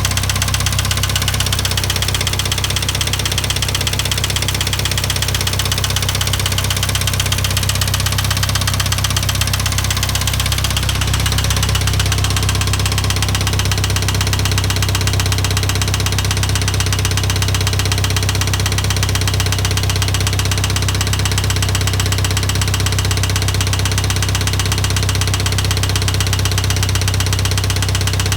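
International Harvester 2544 tractor engine running steadily with a repeating knock, a knock whose source the owner has not yet been able to find.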